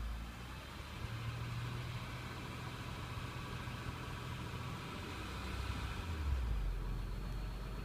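2007 Acura RL's J35A8 3.5-litre V6 engine running at idle with a light, fast ticking over the hum. The owner is unsure whether this ticking is normal for the engine. The engine swells briefly about six seconds in.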